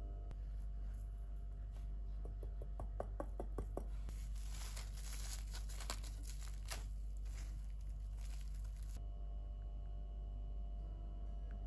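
Crinkling and tearing noises: a run of small clicks that thickens into a dense rustle about four seconds in, then stops abruptly about nine seconds in.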